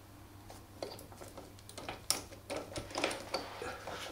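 Chain riveting tool being screwed down on the connecting link of a motorcycle X-ring chain, giving a run of small irregular metallic clicks and creaks as the link's rivet pin is pressed and mushroomed out.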